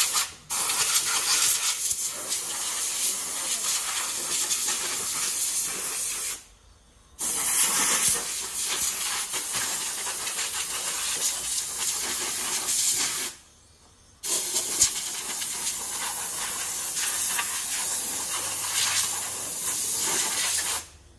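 Compressed-air blow gun blasting into a car's engine bay, a loud steady hiss of air. It comes in long blasts, broken by brief pauses about six and a half and thirteen and a half seconds in, and stops shortly before the end.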